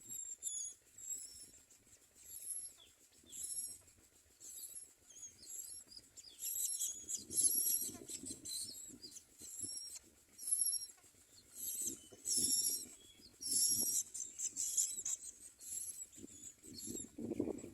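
High-pitched, short calls repeated about once a second from common myna nestlings begging to be fed. A low rumble rises and falls a few times underneath.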